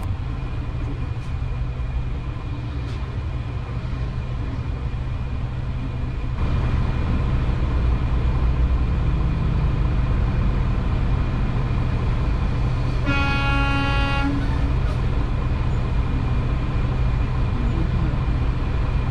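Steady low rumble of a semi truck's diesel engine idling, heard from inside the cab. About two-thirds of the way through, a truck horn honks once for about a second and a half.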